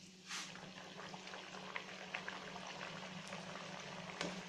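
A puri deep-frying in hot oil in a steel kadhai: the oil sizzles and crackles with scattered small pops, over a steady low hum.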